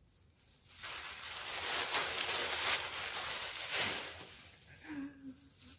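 Tissue wrapping paper rustling and crinkling as it is pulled open and off a garment, loudest for about three seconds starting about a second in.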